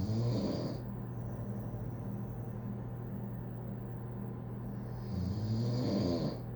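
Snoring: one snore tails off just under a second in, and another long snore comes about five seconds in. Both sound over a steady low hum.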